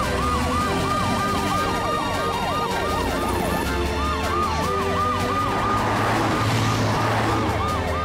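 Cartoon rescue vehicles' sirens in a fast yelp, the pitch rising and falling about three times a second, with more than one siren overlapping.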